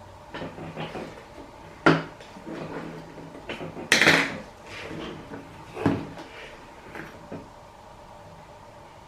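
Small objects being handled on a tabletop: a few sharp knocks and clicks, with a louder brief clatter about four seconds in.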